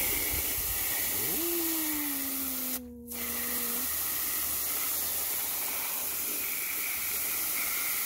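Fine water spray jet hissing steadily as it washes mud off plastic toy vehicles, with a brief dip about three seconds in. A low tone slides slowly downward over the first half.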